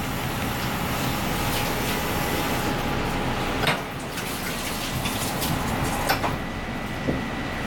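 Steady commercial-kitchen background noise, a hiss with a faint whine, broken by a few light clicks and knocks, the clearest about three and a half seconds in and around six and seven seconds in.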